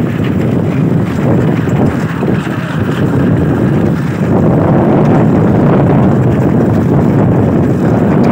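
Loud, steady rush of wind buffeting the microphone on a moving motorcycle, with the motorcycle running underneath. It grows a little louder about halfway through.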